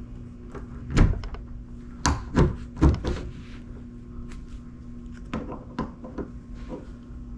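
Door lever handle parts knocking and clicking against the door as the inside and outside halves are fitted together: one sharp knock, a quick cluster of three, then a few lighter clicks.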